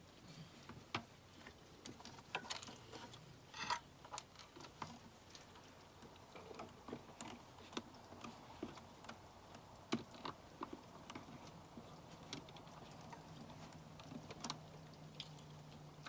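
Faint, irregular small metallic clicks and taps as a screw held on a pin magnet is worked by hand against the vacuum pump and cylinder head, feeling for the bolt hole, with a brief rattle about a third of the way in.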